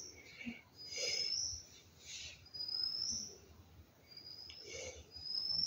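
A bird calling over and over: short high whistles that rise in pitch, about one every second and a half, with fainter chirps between them.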